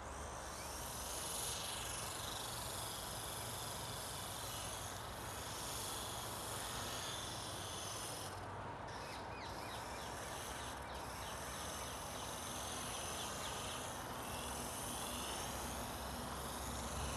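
Electric RC helicopter's motor and rotors whining high overhead, the pitch wavering and gliding as the throttle changes, with a short drop-out about halfway, over a steady outdoor hiss.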